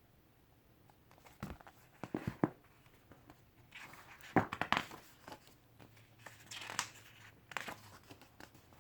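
Crinkling, rustling and tearing of an essay book's packaging being handled and opened: short irregular bursts starting about a second and a half in.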